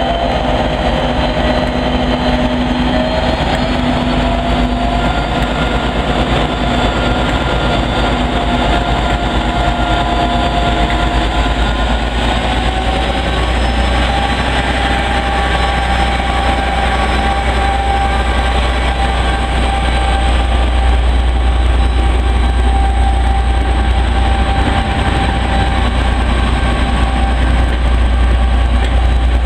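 Class 57 diesel-electric locomotive's engine working as it pulls a train away, with a deep rumble and an engine note that rises over the first dozen seconds, then holds steady. The locomotive passes close by, followed by its coaches rolling past on the rails.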